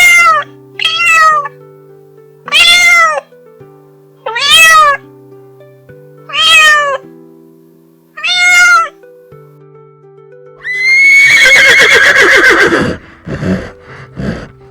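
A cat meowing six times, each call rising then falling in pitch, over soft background music. About ten seconds in a horse whinnies, a long wavering call followed by a few short snorts.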